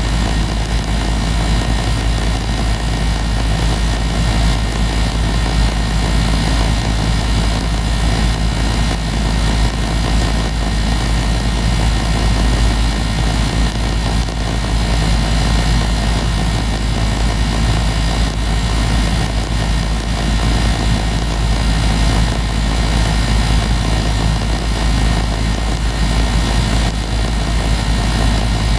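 2018 Goodman 2.5-ton gas pack running steadily in cooling mode: the compressor's steady hum under the condenser fan's even rush of air.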